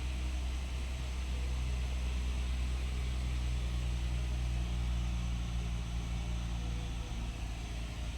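Vehicle engine idling with a steady low hum; part of the hum drops away near the end.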